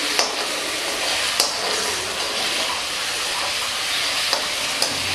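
Ginger-garlic paste sizzling in hot oil in a kadai, stirred with a metal spatula that clicks sharply against the pan four times.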